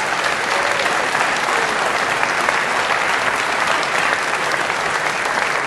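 Large audience applauding, loud and steady.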